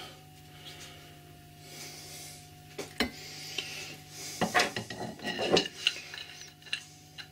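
Metal parts handled on a steel-topped workbench: a sharp click just before three seconds in, then a short run of clattering and scraping as the lathe's threaded cross-slide leadscrew is picked up and handled, with a few lighter clicks after.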